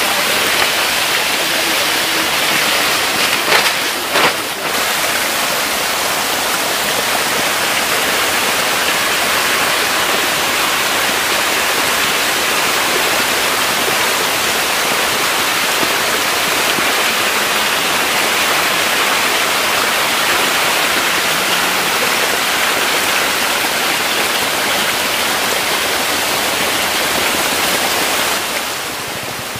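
Steady rushing and splashing water in a shallow tank crowded with hybrid magur catfish, with a few brief knocks about three to four seconds in.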